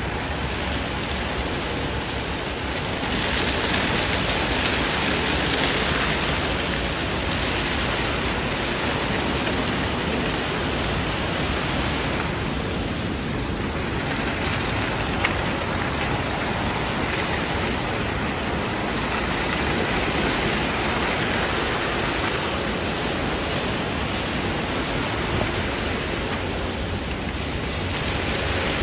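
Rotating side brushes and water spray of a MacNeil tunnel car wash scrubbing a car, making a steady rush like heavy rain. It swells louder and eases a few times as the brushes move over the car.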